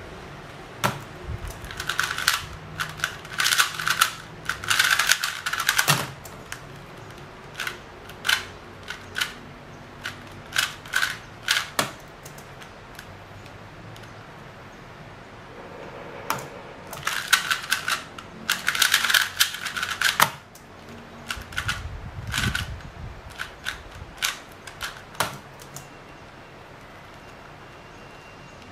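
A MoYu LingPo 2x2 speedcube being turned fast in the hands: two runs of rapid plastic clicking and clacking a few seconds each, one early and one about halfway, with scattered single clicks between.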